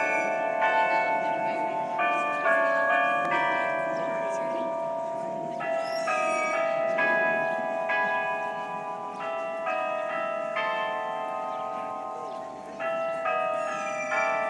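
The Delacorte musical clock playing a tune in bell tones, one ringing note after another.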